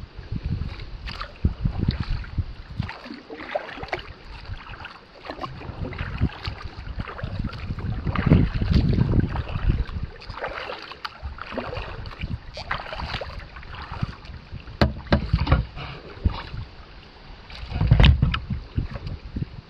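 Kayak paddling on a lake: double-bladed paddles dipping and splashing in the water, with drips and occasional sharp clicks. Gusts of wind buffet the microphone, strongest about halfway through and again near the end.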